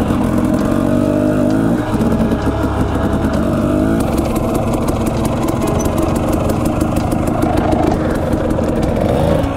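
Dirt bike engine running under way on a trail ride, revving up and easing off. It rises in pitch about a second in and again near the end.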